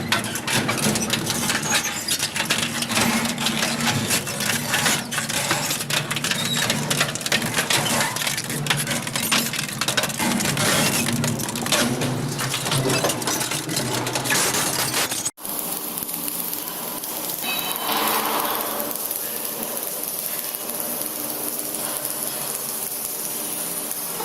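Metal parts clinking and clattering in a dense, irregular stream, as forged steel pieces knock against each other. About two-thirds of the way through it cuts off abruptly to a steadier machine sound with a faint hum.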